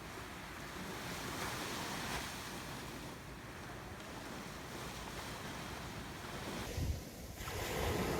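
Ocean waves washing on a shore: a steady rush that swells and eases, with a wave breaking about seven seconds in and surging louder near the end.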